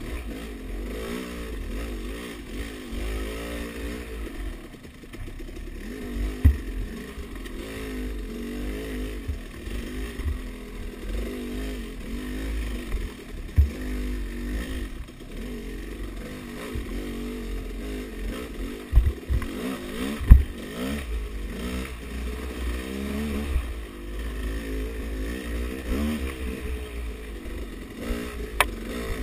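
Dirt bike engine revving up and down continuously as it is ridden over a rough trail, with several sharp thumps from bumps along the way.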